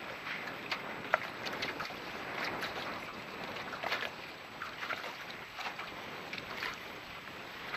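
Choppy lake water splashing and slapping irregularly against a small boat's hull in a breeze, with one sharper tap about a second in.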